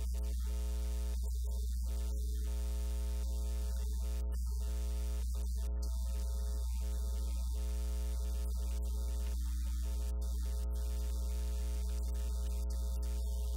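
Steady electrical mains hum: a low, unchanging buzz with a ladder of even overtones, and no voices audible over it.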